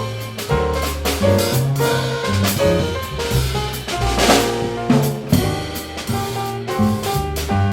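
Live jazz combo playing, with the drum kit to the fore: snare and bass-drum strokes over a moving bass line. A loud cymbal crash lands near the middle.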